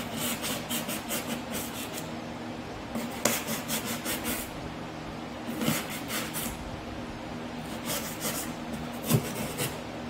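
Utility knife blade sawing back and forth through foam board to cut a slot, in four bouts of quick strokes, over a steady fan hum.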